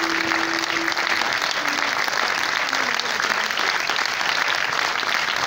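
Audience applauding steadily, a dense patter of many hands clapping. A last held musical note fades out about a second in.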